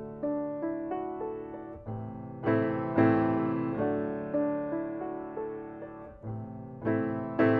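Solo piano music: chords and melody notes struck and left to ring and fade, with louder chords about three seconds in and again near the end.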